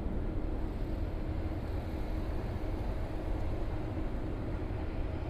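Steady outdoor street background noise with a low rumble, like distant traffic.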